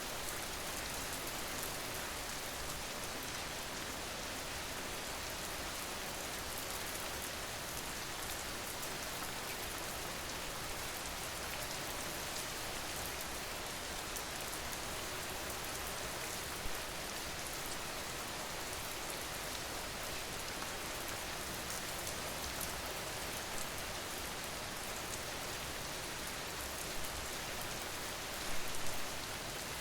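Steady rain: an even hiss of falling rain with many fine drop ticks. A few louder single drop hits stand out, with a small burst of them near the end.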